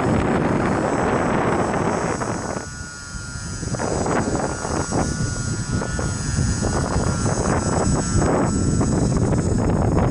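Strong wind buffeting the microphone with a heavy rumble, easing briefly about three seconds in. Through the lull comes the thin whine of an E-flite UMX Beast 3D micro RC plane's small electric motor and propeller.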